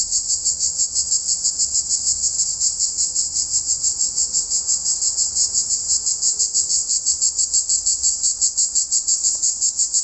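Male cicadas singing together in the trees: a loud, high, dense buzz that pulses evenly about six times a second. It is the males' call to the females.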